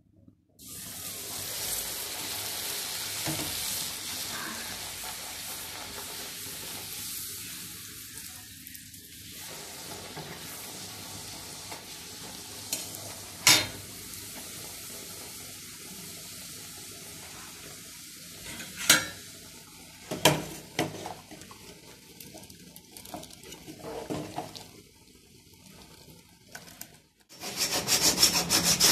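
Puris deep-frying in hot oil in a kadhai: a steady sizzle, with three sharp clinks of a metal spatula against the pan midway. Near the end the sizzle cuts off and a saw rasps quickly back and forth through bamboo.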